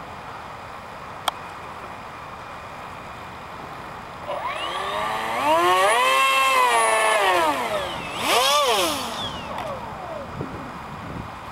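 Electric ducted fans of a radio-controlled model F-14 jet spooling up to a high whine about four seconds in, holding for a few seconds, easing off, then a short second burst of throttle before winding down. A steady hiss runs underneath.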